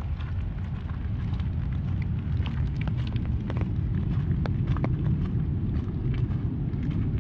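Raindrops ticking on an umbrella overhead, many scattered sharp taps, over a steady low rumble.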